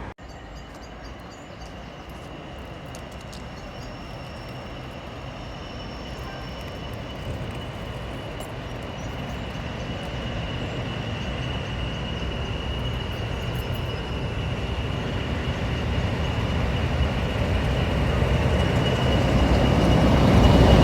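A train approaching, its rumble growing steadily louder until it is close, with a thin, steady high-pitched whine running through it.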